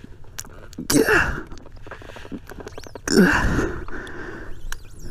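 A man grunting and blowing out hard twice, about a second in and again after three seconds, as he strains to push a fallen dirt bike off himself. Small knocks and rustling of brush between the grunts.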